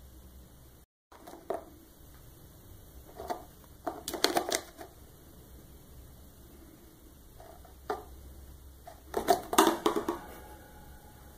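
Small clear plastic tub being nosed and flipped by a rabbit, clattering on the floor in short runs of clicks and knocks, the loudest run near the end.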